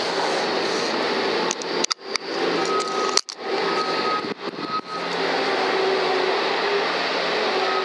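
Steady hiss and hum like a fan, broken several times by a sharp click followed by a brief drop in level that recovers within about half a second.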